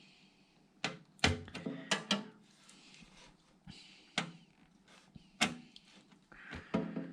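Irregular clicks and knocks of hardware being handled inside a computer case, several sharp taps spread unevenly.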